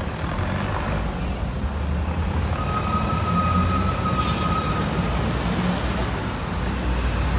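An open-top car driving in city traffic: its engine running with a steady low rumble and road noise. Near the middle, a thin high steady tone sounds for about two and a half seconds.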